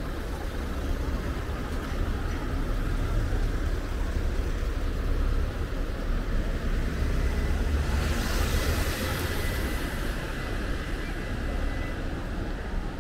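Road traffic rumbling steadily, with a brief hiss about eight seconds in.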